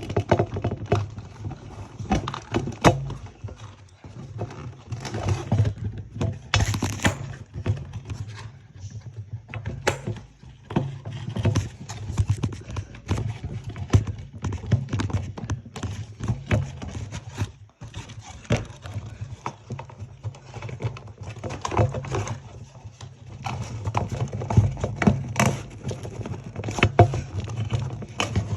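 Plastic toy packaging being handled as a doll is freed from its box: irregular clicks, knocks and rustles of plastic and cardboard, over a steady low handling hum.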